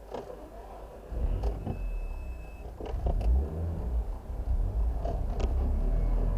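Car running on the move with a heavy low rumble that swells about a second in, with a few short sharp clicks or knocks over it.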